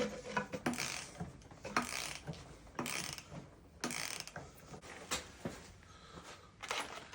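A ratchet socket wrench working the cylinder-head nuts loose on a Petter A1 stationary engine: irregular ratcheting strokes and metal clicks, roughly one a second.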